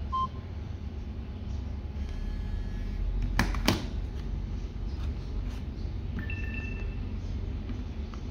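Short electronic key beeps from basic feature phones as their buttons are pressed, one right at the start and a two-note beep past the six-second mark, with two sharp knocks of the handsets being handled about three and a half seconds in. A steady low hum runs underneath.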